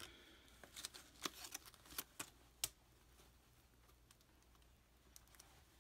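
Faint, light clicks and ticks from a dress shirt and its plastic collar stays being handled, a scatter of them in the first three seconds, then near silence.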